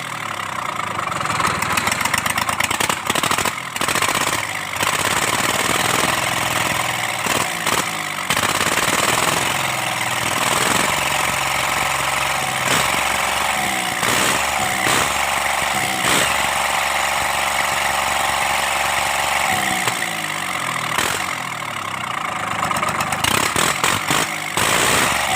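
Kubota D1402 three-cylinder diesel running. It is revved up about eight to ten seconds in, held at the higher speed, and eased back to idle at about twenty seconds, after its bad injector was fixed.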